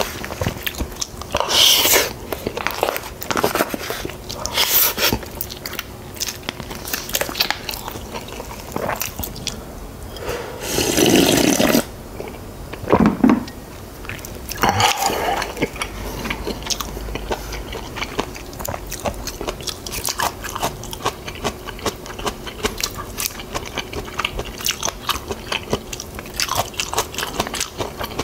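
A person chewing and biting mouthfuls of yeolmu (young radish) bibimbap close to the microphone: crunching and wet mouth sounds with many small clicks, and a few louder bursts around the middle.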